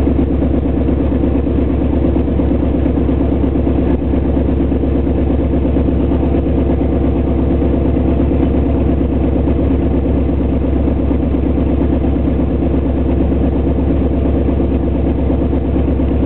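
Small propeller plane's piston engine running steadily at low taxi power, heard from inside the cockpit, with an even throb and no change in pitch.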